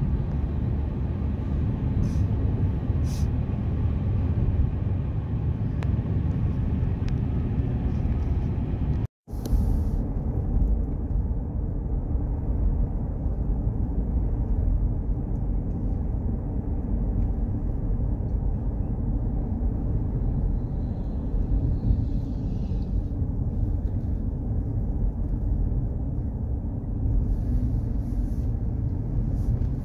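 Steady low rumble of road and engine noise inside a moving car's cabin. It cuts out for an instant about nine seconds in.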